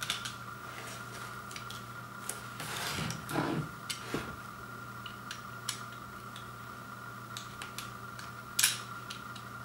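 A knife blade cuts along the edge of a cardboard record mailer, with scattered small clicks and taps. A longer scraping cut comes about three seconds in and a sharp snap near the end, over a steady low hum.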